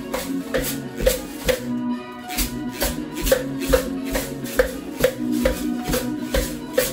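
Music with a steady beat, about two strokes a second, with homemade found-object shakers (a tin can and a plastic container) rattling along in time.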